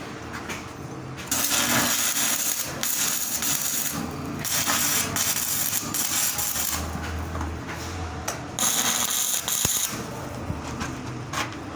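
Stick (SMAW) welding arc crackling and hissing in several short runs of a second or two each, with brief breaks between them.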